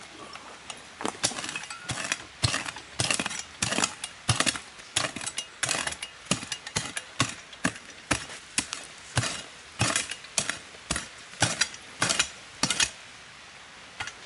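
Small metal shovel digging into forest soil: irregular chops and scrapes, roughly two a second, stopping shortly before the end.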